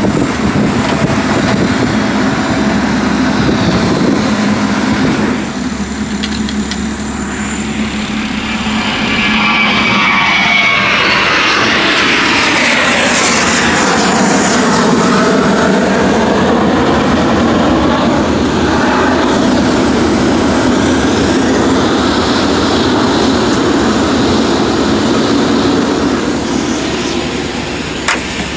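Jet airliner engines running, heard over the steady noise of a vehicle driving across an airport apron. Between about nine and eighteen seconds in, a jet's sound swells and sweeps in pitch as it moves past.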